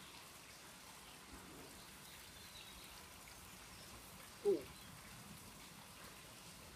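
Faint crackling of a tinder bundle catching fire and burning, from a bow-drill ember. About four and a half seconds in comes one brief pitched sound, louder than the crackle.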